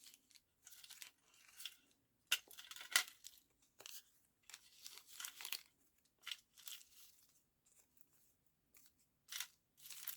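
Paper scraps rustling and crinkling in irregular bursts as they are handled and sorted, loudest about two to three seconds in.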